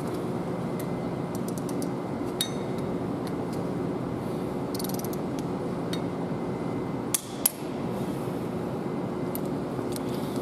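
Torque wrench on the camshaft gear bolts of a Cummins ISX engine, ratcheting briefly about five seconds in and then giving two sharp clicks about seven seconds in, the sign of a bolt reaching its set torque. A steady shop hum runs underneath.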